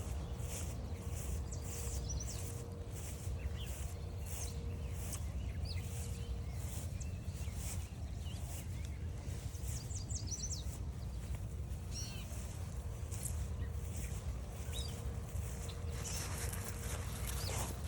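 Footsteps on a forest trail, about two a second, with songbirds chirping and calling now and then, over a steady low rumble on the microphone.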